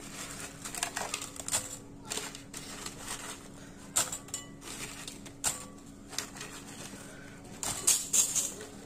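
Crispy fried potato fries rattling and crackling as a hand stirs and picks through them in a glass bowl: irregular dry clicks and crunches that tell how crisp the fries are, busiest near the end, over a faint steady hum.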